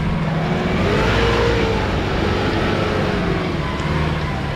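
Mitsubishi Pajero's engine revving under load as the SUV climbs a steep sandy slope; the pitch rises about a second in, then eases off.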